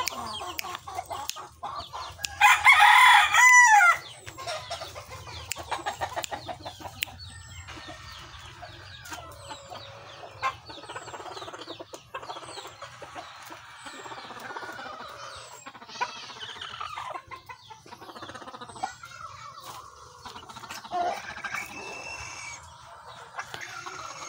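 Gamecock, a Bacolod line × lemon sweater cross, crowing once, loud, starting about two seconds in and lasting about a second and a half. Softer clucks and short chicken calls follow.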